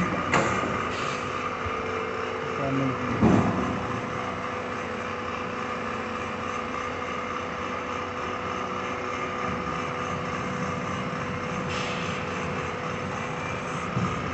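Steady mechanical hum of a running plastic injection moulding machine, with a few sharp clicks near the start and a short knock about three seconds in.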